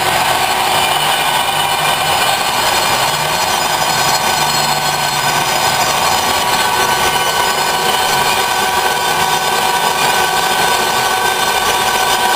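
Large metal lathe running steadily with a steady hum and several steady tones, while a high-speed steel tool takes a light finishing skin cut across a welded plate part.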